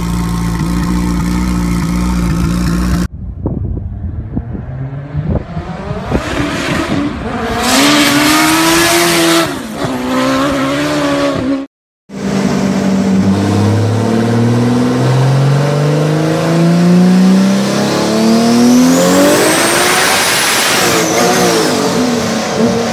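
Smart Fortwo's turbocharged Suzuki Hayabusa motorcycle engine idling, then revved up and down. After a cut, a Toyota Starlet's turbocharged 2JZ straight-six on a chassis dyno pulls steadily up through the revs with a high whine rising and falling, then lets off near the end.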